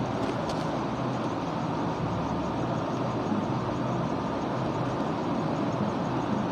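Steady rushing background noise with a faint low hum under it, unchanging throughout.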